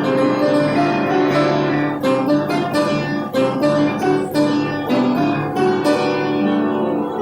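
Instrumental music of ringing plucked strings, sustained notes overlapping, with a run of sharp plucked notes, about three a second, from about two seconds in to about six seconds in.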